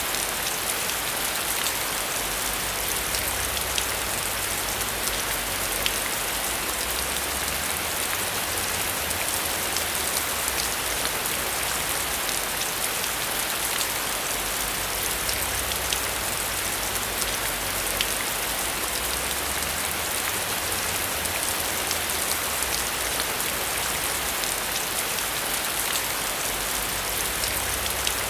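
Heavy rain pouring steadily onto a metal roof: a dense, even wash of noise with many small drop ticks, unchanging throughout.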